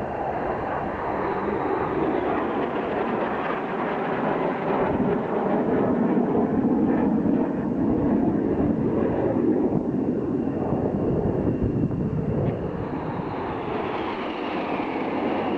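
Jet engines of BAE Hawk T1 trainers, each a single Rolls-Royce Turbomeca Adour turbofan, as the aircraft pass overhead: a steady rushing roar that swells in the middle and eases off, with a whine falling in pitch near the end as a jet passes.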